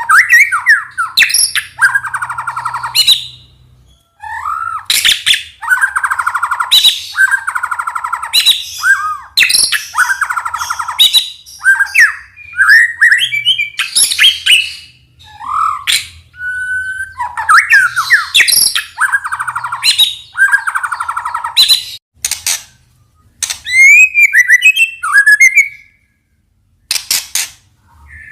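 White-rumped shama (murai batu) singing loudly in rapid phrases that alternate clear whistled slurs with harsh, rattling notes, with a couple of brief pauses.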